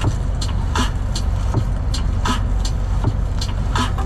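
Cab interior of a MAN TGX truck cruising at about 60 km/h: a steady low engine and road rumble, with a sharp tick repeating about every three quarters of a second.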